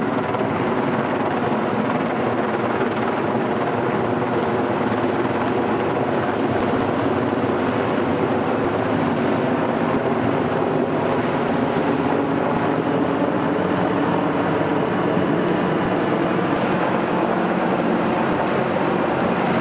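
Steady, loud rush of a waterfall, the water falling without a break.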